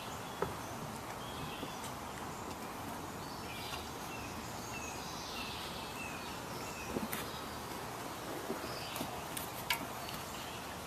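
Steady background noise with a few faint, short, high chirps in the middle and several light clicks and knocks scattered through it.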